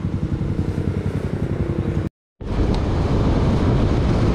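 Motorcycle engine running while riding, with wind on the microphone. The sound cuts out for a moment about halfway through, then comes back as a rougher rumble of wind and road noise.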